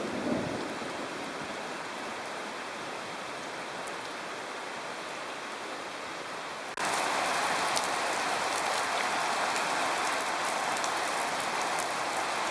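Heavy thunderstorm rain, a steady hiss, with the tail of a thunder rumble dying away in the first second. About seven seconds in the rain noise jumps abruptly louder and brighter.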